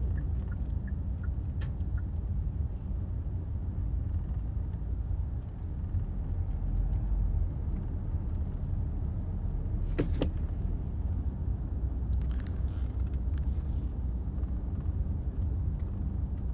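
Steady low rumble of road and engine noise inside a moving car's cabin, with a short click about ten seconds in.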